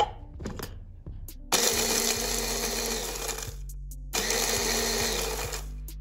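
Small electric food chopper grinding Oreo cookies into crumbs in two pulses of about two seconds each, with a short pause between them.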